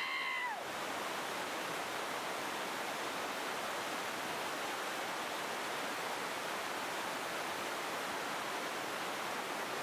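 Steady rush of whitewater rapids, an even roar of churning water. Right at the start a brief high call rises and falls for under a second.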